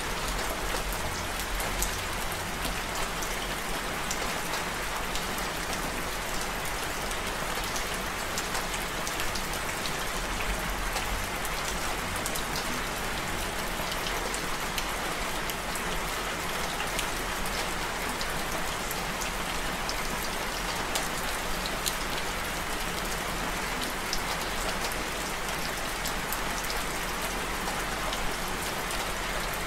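Steady rain falling: an even hiss dotted with many small, sharp drop hits.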